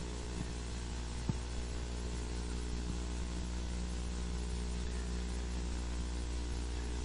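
Steady electrical mains hum with faint room hiss, and one small click just over a second in.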